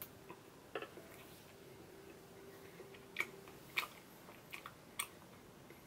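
Quiet eating sounds of ice cream cake being eaten with a metal spoon from a glass bowl: soft mouth smacks and a handful of short, sharp spoon clicks scattered through.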